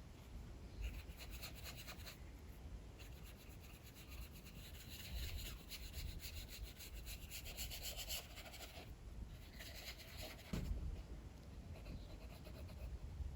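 Drawing strokes scratching and rubbing on paper in bursts of one to three seconds, over a steady low rumble of strong wind.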